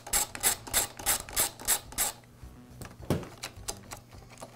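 Ratchet clicking in short, even strokes, about three a second, as the screws holding the blower's carburetor and air-filter base are backed out; it stops about two seconds in, followed by quieter handling of the parts and one soft knock.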